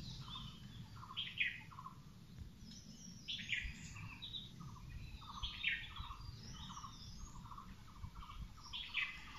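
Several birds calling in woodland: scattered short high chirps over a steady run of lower repeated notes, about two a second.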